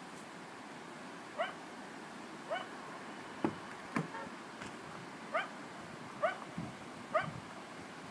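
An animal repeating short, rising, pitched cries, one roughly every second or so.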